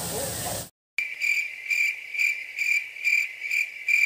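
Cricket chirping sound effect edited in over a hard cut from the room sound: a high chirp repeating about two and a half times a second, starting and stopping abruptly. It is the comic "awkward silence" cue.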